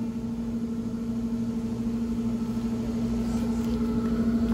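A steady low mechanical hum holding one constant tone over a low rumble.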